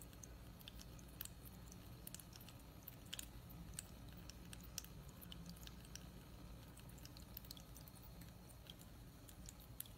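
Small tabletop fountain running faintly, water trickling over its tiers and dripping onto stones in irregular little splashes and ticks, over a faint steady low hum.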